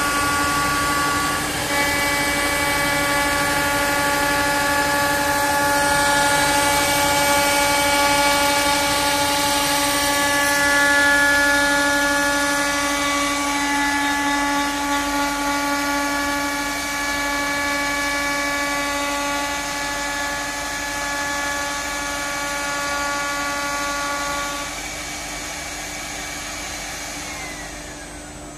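Cybertronic CNC router spindle running with a steady high whine over the hiss of the dust extraction, as a cone-shaped bit mills the raised edge of a solid-wood panel. Near the end the whine falls in pitch and the sound drops as the spindle spins down.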